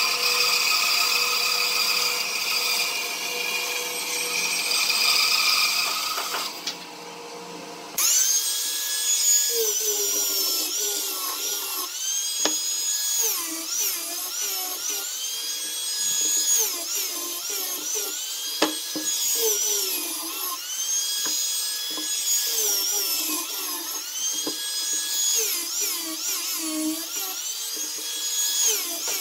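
A bandsaw running and cutting a curved wooden piece for the first six seconds or so. Then an angle grinder with a sanding disc sands the curved wood, its motor whine dropping in pitch as the disc is pressed in and rising again, about every two seconds.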